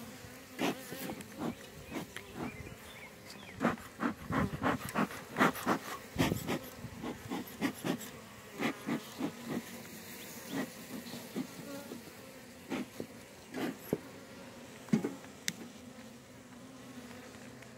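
Honeybees buzzing steadily around an opened hive, the hum of a small colony that sounds a lot quieter than a strong one. A run of close clicks and knocks sounds over the hum, thickest in the first half.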